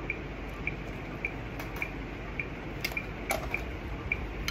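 Soft, short ticks in a steady rhythm, a little under two a second, over a low background hiss, with a few sharper clicks about three seconds in.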